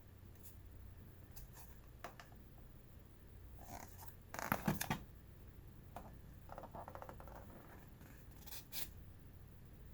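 Hands handling a wireless keyboard and its packaging: scattered light clicks and taps, a louder burst of scraping and rustling about halfway through, then a short quick rattle.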